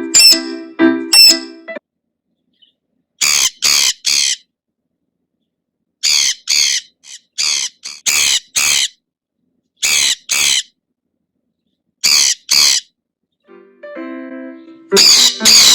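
Sun conure screeching: loud, harsh shrieks in quick bunches of two to four, with silent gaps between the bunches. Piano music plays under the first couple of seconds and again near the end.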